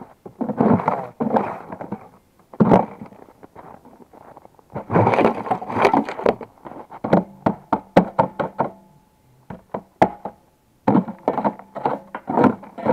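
Irregular knocks and clatter of hand tools and metal parts being worked on a Buran snowmobile during repair of its manual starter, coming in uneven bunches with short pauses between.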